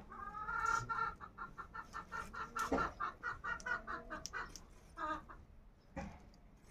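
Fowl clucking: a fast run of short, evenly repeated calls for the first two and a half seconds, then shorter runs about three to four and a half seconds in and again near five seconds.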